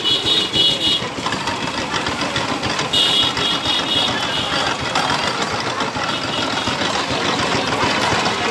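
Motor-driven sugarcane juice machine running, its belt-driven flywheel spinning and steel rollers crushing cane, with a fast, steady chugging. A high-pitched tone comes in twice, at the start and again about three seconds in.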